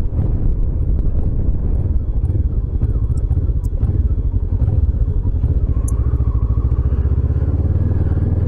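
Motorcycle engine running steadily while riding, its note rising a little about six seconds in.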